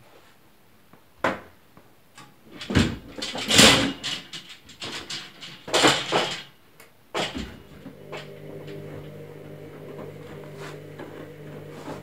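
Several loud knocks and bursts of handling noise in the first half. A little past halfway, a Candy Smart Touch washing machine's drum motor starts turning again with a steady hum during a rapid wash.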